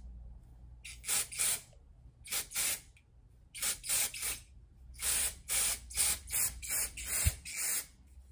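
Osensia Va-Va-Volume texture spray being sprayed onto hair in quick short puffs of hiss, fired in runs of two or three and then a longer run of about eight near the end.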